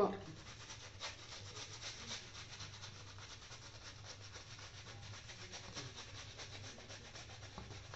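Boar-bristle shaving brush scrubbing shaving-soap lather onto a stubbled face: a soft, steady rubbing made of many quick strokes.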